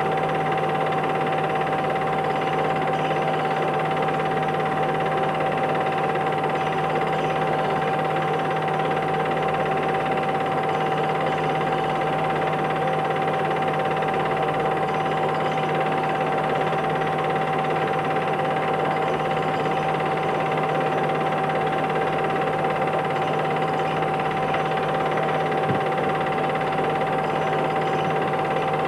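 Film projector running: a steady mechanical whirr with a constant whine over a low hum.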